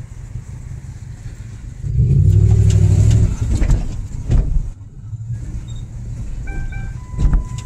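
A car running, heard from inside as it drives, with a louder surge of engine sound about two seconds in and a couple of knocks. Near the end a repeating electronic chime begins.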